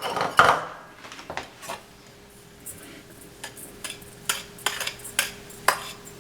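Utensils knocking and clinking against a cooking pan as sugar is tipped and scraped in: a string of irregular sharp taps, the loudest in the first second, over a faint steady hum.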